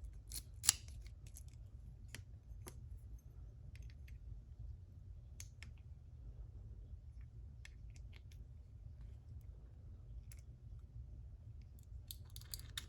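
Scattered small metallic clicks and ticks from a Mul-T-Lock MT5 lock core and hand tools being handled during disassembly, the sharpest about half a second in and a few more near the end, over a steady low hum.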